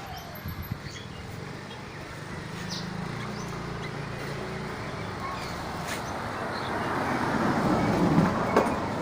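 A motor vehicle passing, its noise swelling over several seconds and loudest near the end. Short bird chirps sound over it.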